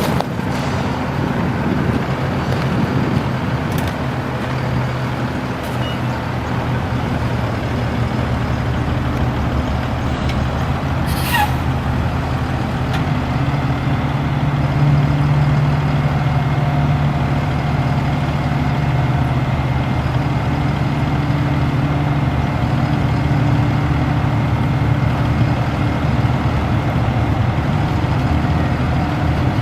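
Kenworth T270's Paccar PX-7 inline-six diesel running steadily, its note growing a little louder from about halfway through. A short falling whistle sounds about eleven seconds in.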